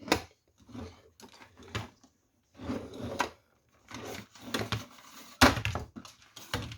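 A plastic toy vacuum cleaner being handled: irregular clicks, knocks and rustling, with one sharper knock about five and a half seconds in.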